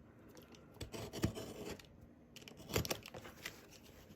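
A cardboard shipping box being opened by hand: packing tape tearing and cardboard scraping, with a few short knocks about a second in and again near three seconds.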